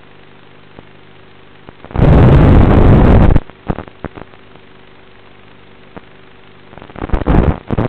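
Analog FPV video-receiver audio: a steady low buzz, broken by a loud rush of static about two seconds in that lasts over a second, then crackling static bursts near the end, typical of the drone's analog video link breaking up.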